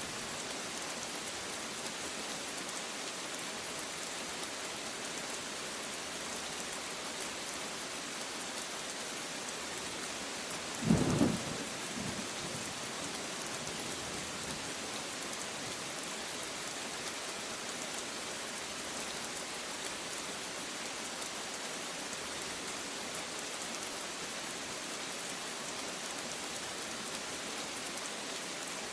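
Steady rain falling, with one short, loud thunderclap about eleven seconds in.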